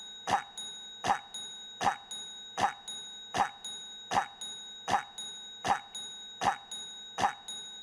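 A devil character's cough, one short cough sample looped over and over: about ten identical coughs evenly spaced, roughly one every three-quarters of a second, over faint steady high tones.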